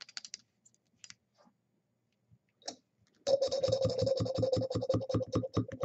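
Plastic syringe being handled with a few faint clicks, then its plunger pressed down, the rubber tip creaking in a rapid stuttering squeak, about eight pulses a second, for the last couple of seconds.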